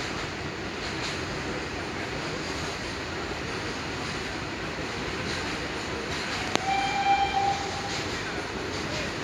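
Goods train rolling past with a steady rushing rumble. About six and a half seconds in there is a sharp click, then the WAG-9 electric locomotive's horn gives one short, steady honk lasting just over a second.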